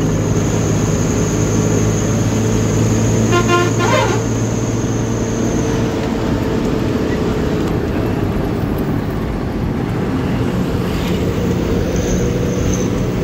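Bus engine running steadily under way, heard from inside the driver's cab. About three and a half seconds in, the horn sounds once, a short, rapidly warbling blast.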